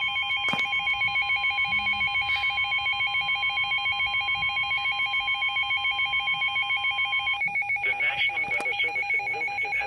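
Emergency Alert System alert tone: a steady alert tone that cuts off about seven and a half seconds in, under rapidly pulsing tones that go on throughout. In the last two seconds a garbled, wavering warble joins the pulsing.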